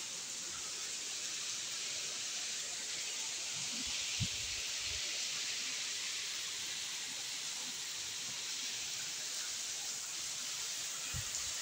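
Steady monsoon rain falling, a continuous even hiss, with a few soft low thumps about four to five seconds in.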